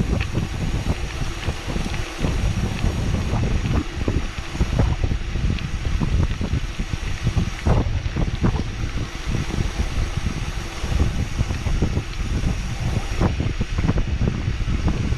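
Wind buffeting the microphone as a mountain bike descends, over a steady rumble with frequent short knocks and rattles from the bike on rough ground.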